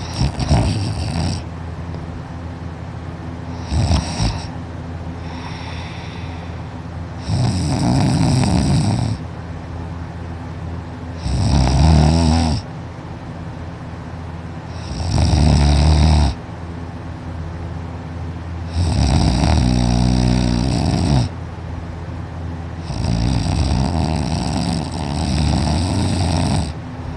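A person in deep sleep snoring loudly, one rasping snore on each breath about every three to four seconds, some snores longer than others.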